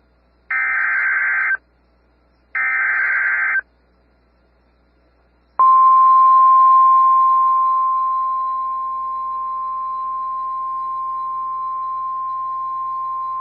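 NOAA Weather Radio Emergency Alert System activation for a severe thunderstorm warning: two bursts of the warbling SAME digital header, each about a second long, then after a couple of seconds of silence the steady 1050 Hz warning alarm tone, which eases down in loudness a few seconds in and then holds.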